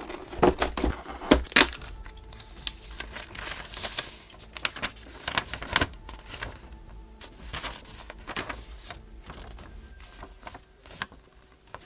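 Packaging being handled: crinkling of a clear plastic blister tray and rustling of a paper instruction sheet, with a few sharp crackles in the first two seconds and softer rustles after.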